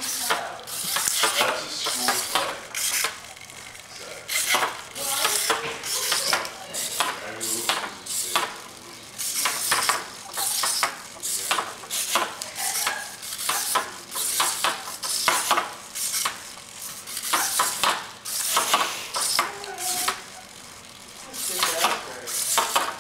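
Servo-driven hexapod walking robot stepping across a desk: its leg servos whir and its feet tap and scrape on the desktop in bursts about once a second, with a few brief pauses.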